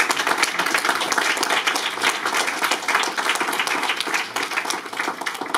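Audience applauding: many people clapping together, dense and steady, stopping suddenly at the end.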